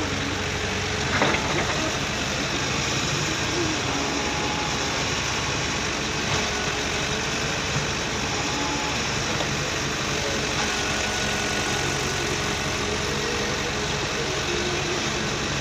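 Diesel engine of a HAMM padfoot (sheepsfoot) soil compactor running steadily while it works over loose embankment fill, with one short knock about a second in.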